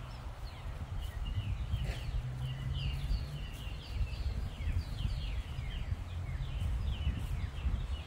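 Birds chirping and chattering, many short falling calls overlapping one after another, over a steady low rumble.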